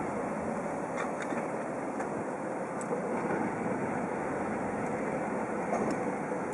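A car moving slowly on an underground car park entry ramp: a steady rumble of engine and tyres, with a few faint ticks.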